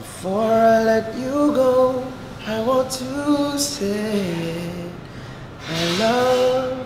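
Men singing unaccompanied, a slow phrase of long held notes that step and glide in pitch.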